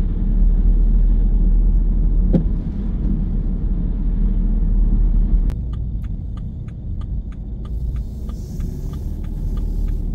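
Car cabin road and engine rumble, heavy for the first five seconds and then easing. From about six seconds in, the turn-signal indicator ticks evenly, about three ticks a second, signalling a turn.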